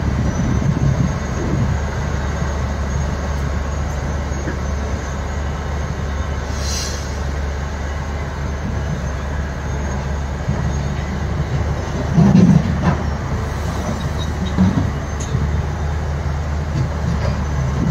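Diesel engines of a Tata Hitachi hydraulic excavator and a Volvo dump truck running with a steady deep drone as the excavator loads rock into the truck. A short hiss comes about seven seconds in, and a louder low rumble, the loudest moment, about twelve seconds in.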